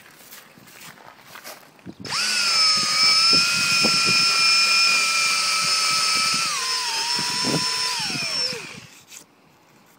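Cordless drill spinning a rubber hog buffing wheel against tyre rubber to buff out a cut: a steady high whine starts about two seconds in, drops in pitch about two-thirds of the way through, then winds down and stops near the end.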